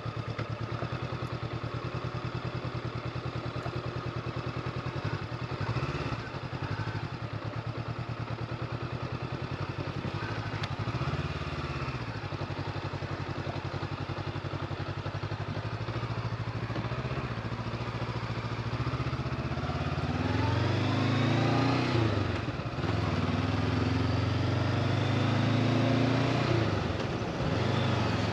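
Honda CB500X's parallel-twin engine running under way, steady for most of the stretch, then rising and falling in pitch several times toward the end as the throttle opens and closes.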